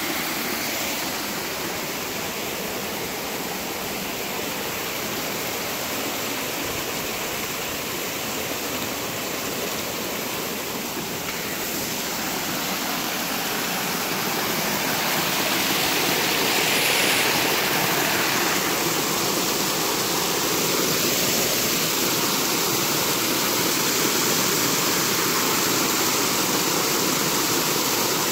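River water rushing steadily, a little louder from about halfway through.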